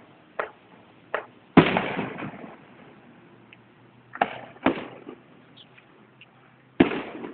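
Aerial firework shells bursting, heard through an old phone's microphone: six booms, the loudest about a second and a half in and again near the end, each trailing off in an echo.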